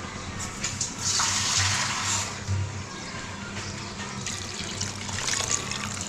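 Water poured into a pan of beef liver curry cooking on the stove, with a louder rush of pouring from about one to two seconds in.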